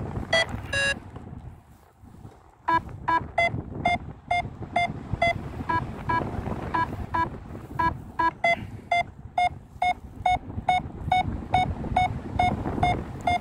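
Paragliding variometer beeping in quick, evenly spaced beeps, about three a second, starting a couple of seconds in, over wind on the microphone. It is the climb tone, the sign that the glider is rising in lift.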